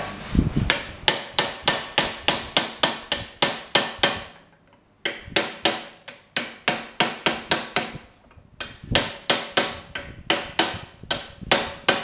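Hand hammer striking red-hot steel during forging, in quick runs of blows at about four a second, broken by two short pauses.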